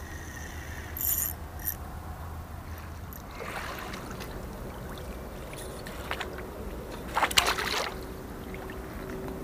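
Aluminium landing net handled in the river: water pours off as it is lifted, and about seven seconds in it goes back into the water with a splash and slosh.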